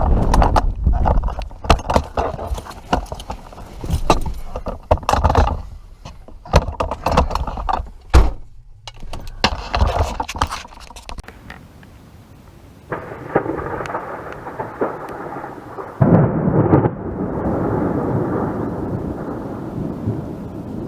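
Loud thunder: a run of sharp crackling cracks for the first ten seconds or so, then a rolling rumble that starts after a short lull and swells again about three seconds later.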